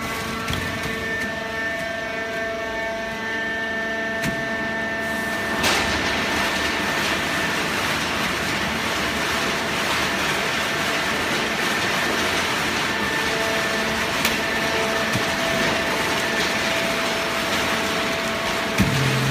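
Hydraulic paper baler running: a steady machine hum with a few held tones over a broad rushing noise, which gets louder about six seconds in.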